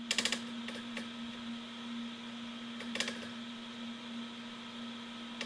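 Hemera 3D-printer extruder's stepper motor whining at one steady pitch as it feeds PLA filament through a Volcano hotend at a constant rate. A few sharp clicks come near the start, about three seconds in, and again at the end.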